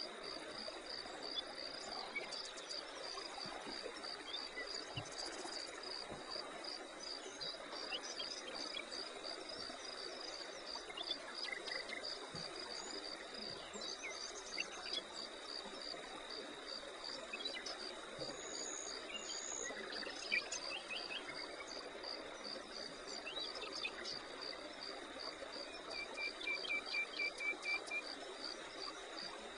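Insects chirping in a steady high pulse about twice a second over a continuous high trill, with scattered bird chirps. Near the end a bird gives a rapid run of repeated notes.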